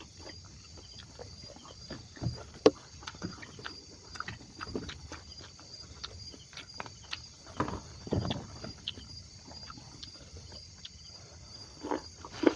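A steady, evenly pulsing insect trill runs throughout. Over it come scattered short knocks, clicks and rustles from handling things or footsteps, with a sharp knock about a quarter of the way in and another near the end.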